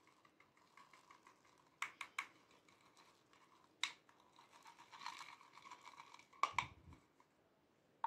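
Small round beads poured from a jar into a glass baking dish, pattering and clicking lightly on the glass. There are a few sharper clicks, and a louder clatter with a knock about six and a half seconds in.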